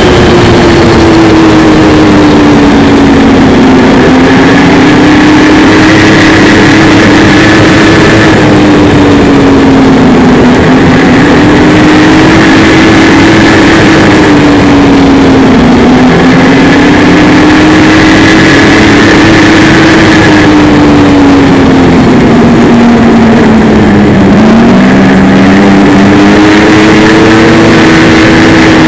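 Snowmobile engine running loud and close while riding. Its pitch slowly rises and falls several times as the speed changes along the trail, over a constant rushing noise.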